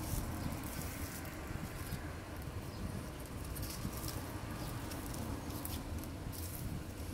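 Clear plastic grafting strip crinkling in short rustles as it is handled and wrapped around a graft, over a steady low background rumble.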